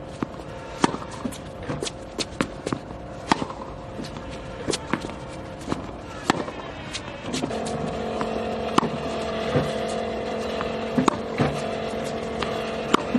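Tennis balls struck by a racquet and bouncing on a hard court: a string of sharp pops at irregular intervals. Under them runs a steady hum that gets louder and lower about halfway through.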